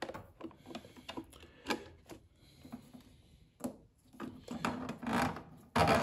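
Irregular clicks, knocks and plastic crinkling from a cut-open plastic water bottle and a washing machine's small ribbed drain hose being handled. Near the end a louder, denser rustling sets in.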